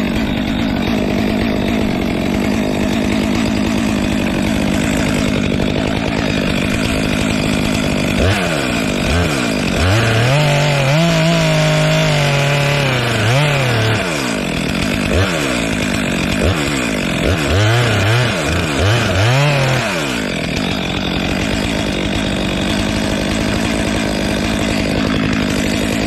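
Gas chainsaw running hard and cutting into a dead tree's trunk; through the middle stretch the engine's pitch repeatedly sags and climbs back as the chain loads up in the cut.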